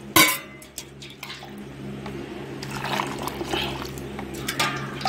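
Water poured from a steel bowl into a steel pot of dried soya chunks, loudest just after the start, then quieter liquid and handling sounds.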